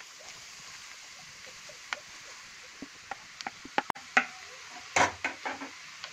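Wooden spatula scraping grated carrot off a plate and knocking against the plate and the pan, with a faint sizzle of carrot in hot ghee underneath. The knocks come as a cluster of sharp taps from about two seconds in, loudest near four and five seconds.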